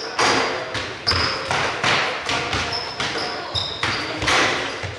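Several basketballs bouncing on a wooden sports-hall floor during a shooting warm-up, irregular overlapping thuds echoing in the hall, with short high squeaks of sneakers on the floor.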